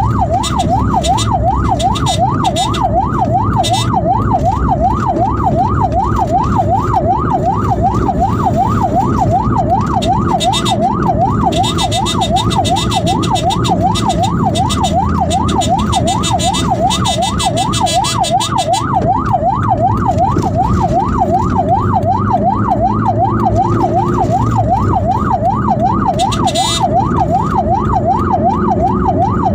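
Ambulance electronic siren in fast yelp mode, its tone sweeping up and down about three times a second without a break, over the rumble of vehicle and road noise.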